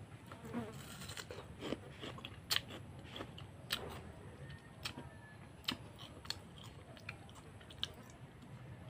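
A person chewing and biting crisp slices of kamias (bilimbi) fruit, close up: faint, irregular crunching with sharp wet mouth clicks every second or so.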